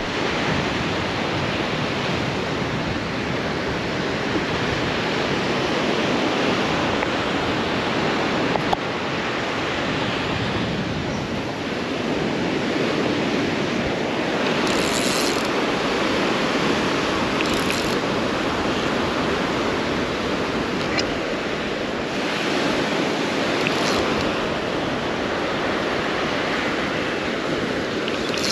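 Ocean surf breaking on a beach, a steady rushing noise that swells and eases every few seconds, with wind on the microphone.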